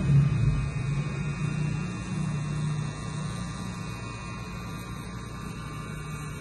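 Cartridge tattoo machine running with a steady low hum as its needle works linework into the skin.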